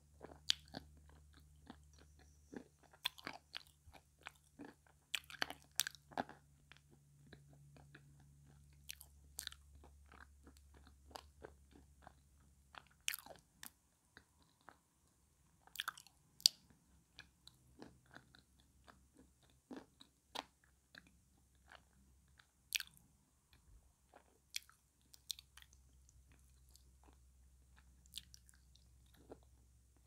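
Close-miked chewing and crunching of blue Uzbek edible clay, with sharp irregular crunches and wet mouth clicks every second or so.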